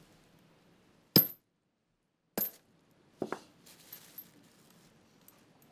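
Steel chain and padlock clinking and clanking as hands work to unfasten the chain from an ankle: a sharp metal clank about a second in, another just before halfway, then a quick cluster of clinks and a few lighter ones.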